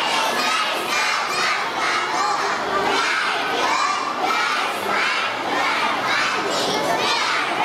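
A large crowd of children shouting and cheering, many high voices overlapping in a continuous din.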